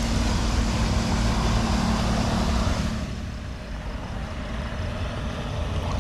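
A motor vehicle engine running close by with a steady low hum, under a loud rushing noise that falls away about halfway through.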